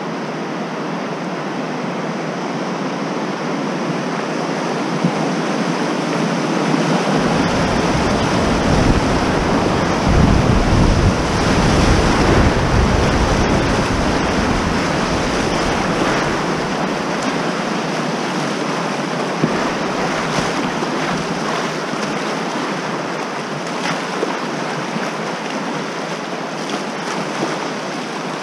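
Whitewater rushing and splashing as a kayak runs a river rapid's wave train, heard close to the water. A deeper rumble comes in about seven seconds in, is strongest a few seconds later, and fades out around nineteen seconds.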